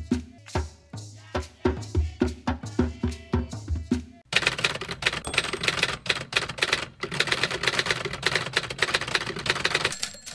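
Percussive drum music with a steady beat for about the first four seconds, then a typewriter sound effect of rapid, dense key clacks that stops just before the end.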